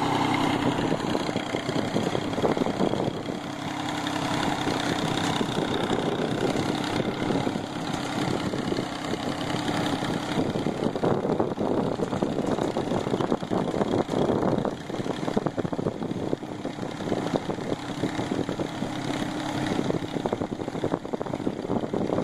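22 hp Mitsubishi compact tractor's diesel engine running steadily while pulling a seed drill through tilled soil.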